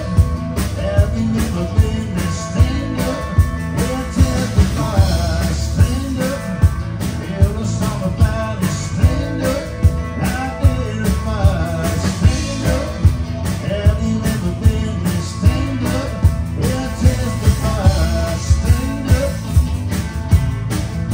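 Live band playing: a woman singing lead over electric guitar, bass guitar and a drum kit keeping a steady beat.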